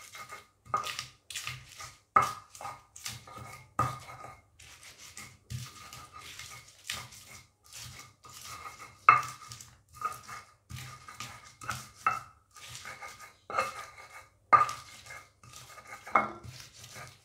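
Stone pestle (ulekan) pounding and grinding chopped green chillies in a stone mortar (cobek). Irregular knocks and scrapes of stone on stone come one or two a second, each with a short ring.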